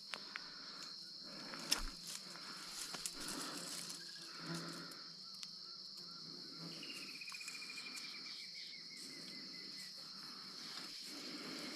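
Steady high-pitched insect chorus of crickets or cicadas, with a pulsed trill that falls in pitch over about three seconds past the middle, and a few sharp snaps or clicks, the loudest about two seconds in.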